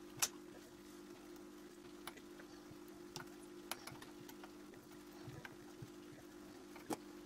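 Light clicks and taps of steel tweezers and fingertips working on the exposed top-plate mechanism of a Canon A-1 film camera, over a steady low hum. The sharpest click comes just after the start and another near the end, with a few fainter ticks between.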